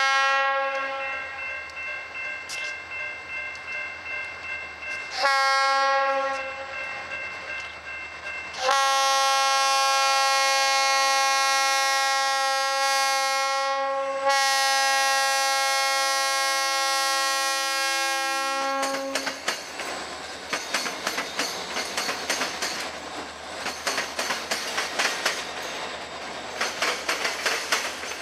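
Leslie RS-3L horn on an EMD SD40-2 locomotive, fouled, sounded in several long blasts, the last two the loudest with a short break between them. The horn stops about 19 seconds in, and the passing train follows: engine noise with wheels clicking over rail joints.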